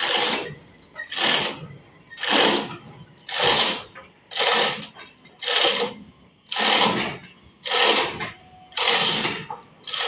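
Repeated rasping, scraping strokes about once a second, each lasting about half a second, as a large trembesi log is levered and worked into place on a sawmill carriage with long steel bars.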